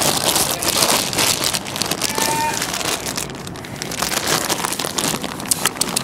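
Wind buffeting the microphone, with crackly handling rustle as the camera moves along the fence boards. A short goat bleat comes about two seconds in.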